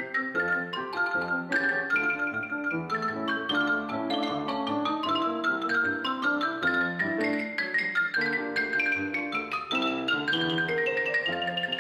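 Xylophone played with two mallets in quick runs of notes, accompanied by grand piano. Over the second half the xylophone line climbs steadily higher in pitch.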